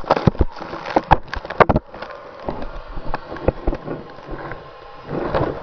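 Snow scraping and crunching against a camera buried in avalanche snow, with many irregular sharp knocks. It eases off about two seconds in and grows louder again near the end.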